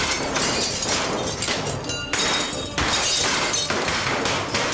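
A rapid barrage of pistol shots with glass shattering, a dense run of cracks that eases off briefly about two seconds in and then picks up again.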